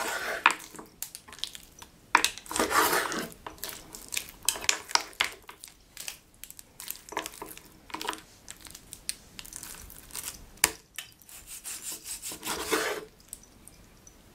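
Kitchen scissors snipping through raw pork on a wooden cutting board: many short, sharp clicks of the blades, with a few longer scraping sounds as the meat is moved on the board.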